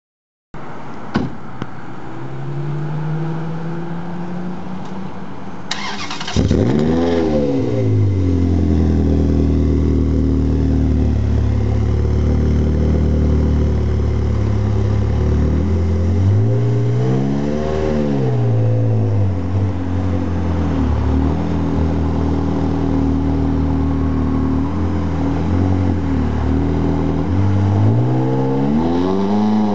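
Ferrari F360 Spider's V8 with an aftermarket sport exhaust: the starter cranks briefly about six seconds in, then the engine catches with a loud rev flare and settles into a steady idle. It revs once more around the middle, blips a few times, and revs again near the end as the car pulls away.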